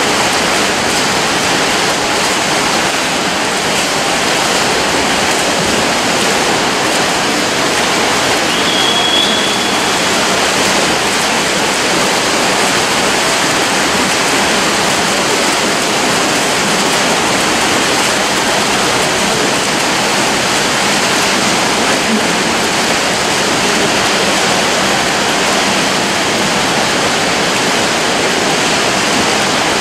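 Many swimmers splashing down the lanes of an indoor pool in a freestyle race: a loud, steady rush of churning water.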